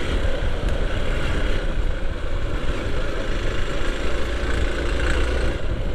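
Single-cylinder dual-sport motorcycle running steadily while being ridden along a dirt track, its low engine hum under wind and tyre noise.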